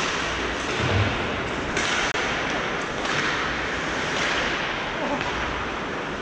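Hockey game in play: a steady scraping hiss, with a few knocks of sticks and puck.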